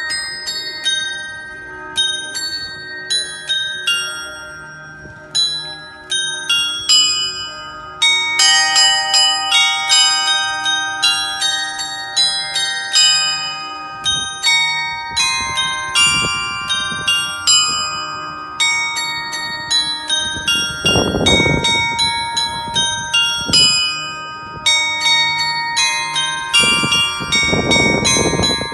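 Small metal bells of a clock's carillon striking a tune at the top of the hour, one note after another, each left ringing over the next. Twice in the second half a brief rushing noise comes through under the bells.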